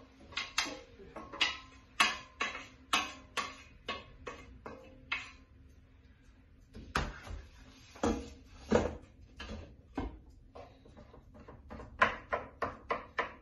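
A wooden spatula clicking and knocking against a stainless-steel pot and a frying pan as fava beans are scraped out into the pan, about two or three strokes a second. After a short lull come a few heavier knocks, then more quick clicks near the end as the beans are stirred.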